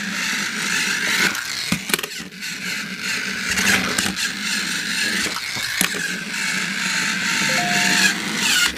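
Battery-powered TrackMaster Toby toy train running, its small motor and plastic gearbox giving a steady whir with a few clicks. A short steady tone sounds near the end.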